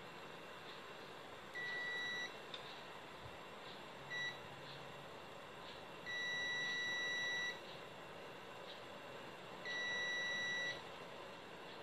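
Multimeter's continuity buzzer beeping four times, a steady high tone each time, as its probes are touched across the leads of the amplifier's final power transistors; the second beep is brief and the third the longest, about a second and a half. On this buzzer range each beep signals a short, a low-resistance path, between the leads being probed.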